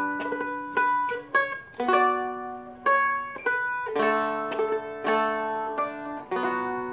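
Seagull Merlin M4, a small four-string fretted dulcimer-style instrument, playing the song's chord changes: shapes at frets three-three-five and five-five-seven, the latter a B minor substitute. The chords are strummed about once a second and left to ring, with a few single picked notes between them.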